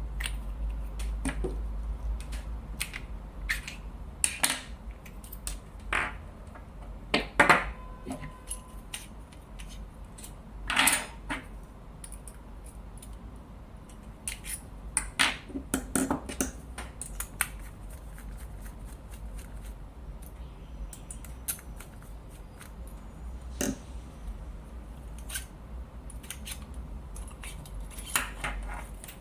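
Small metal parts of a lightsaber hilt handled during disassembly: irregular clicks, taps and clinks, a few of them louder, over a low steady hum.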